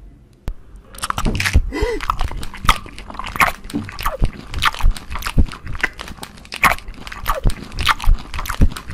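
Close-miked crunching bites and chewing: a quick, irregular run of crisp crunches starting about a second in.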